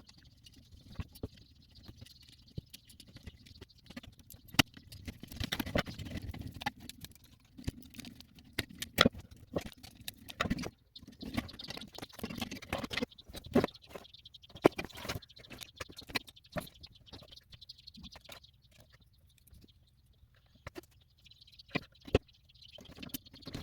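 Irregular clicks, taps and scratchy rustles of hands handling small tools and a circuit board at a workbench, with a faint steady hiss.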